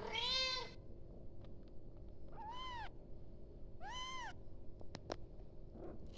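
Kitten meowing to call its mother: three short high meows, each rising then falling in pitch, the first the loudest.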